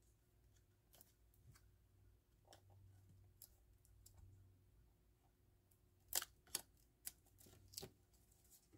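Faint handling of paper: soft rustles, then a few short, sharp clicks and taps about six to eight seconds in as pieces of paper are fitted and pressed into a folded pocket.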